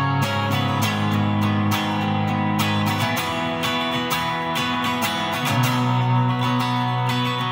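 Electric guitar played through an amplifier, strumming sustained chords. The chord changes about three seconds in and again about five and a half seconds in.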